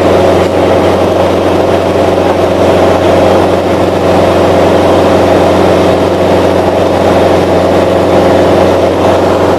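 Grumman Tiger's four-cylinder Lycoming engine and propeller droning steadily in flight, heard loud from inside the cockpit.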